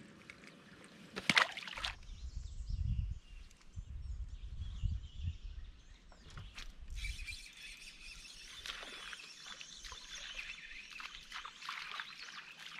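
Outdoor lakeside ambience. Songbirds chirp and sing in the trees through the second half, and gusts of wind rumble on the microphone for several seconds before that. A single sharp knock, the loudest sound, comes about a second and a half in.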